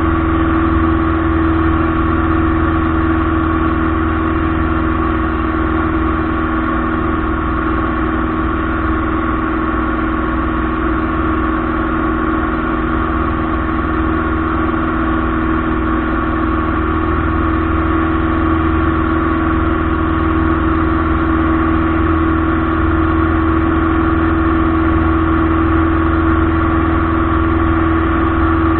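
Steady drone of a light aircraft's piston engine and propeller, heard in the cockpit, with an even hum and constant tones that do not change.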